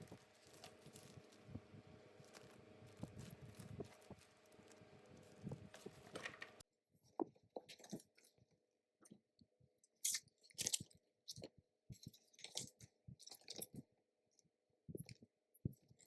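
Irregular crinkling, clicking and rustling of packaging being handled. A steady low hum runs under it for the first six seconds or so, then cuts off abruptly, leaving only the scattered crinkles and clicks.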